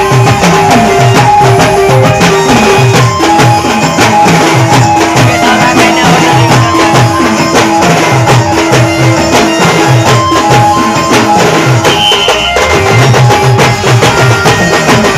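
A band playing a loud Timli folk dance tune: fast, evenly repeated drum strokes under a held melody line. The drumming breaks off briefly about twelve seconds in and then resumes.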